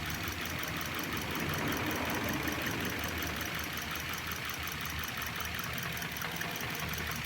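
Car engine idling steadily with a fast, regular ticking over it. The engine has an intermittent misfire on cylinder 3, traced to a loss of the ignition coil signal once it is warm.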